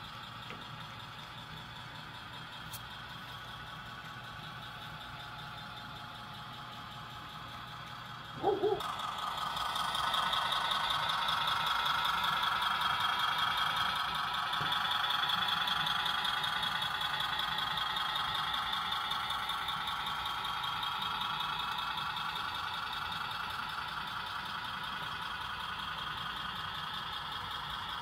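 Model freight train running on its track: the steady, rhythmic whirring of the model locomotive and the rolling wheels of its hopper cars. The sound gets louder from about nine seconds in, just after a brief two-part tone.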